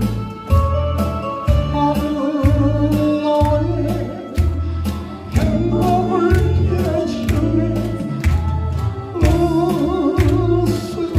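A man singing a slow, plaintive song into a handheld microphone over an amplified accompaniment with a steady bass beat.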